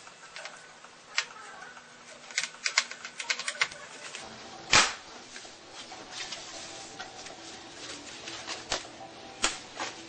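Irregular sharp clicks and taps of hands handling small plastic and metal parts inside an opened Sony Vaio laptop. A quick run of clicks comes about two and a half to three and a half seconds in, and the loudest single click about five seconds in.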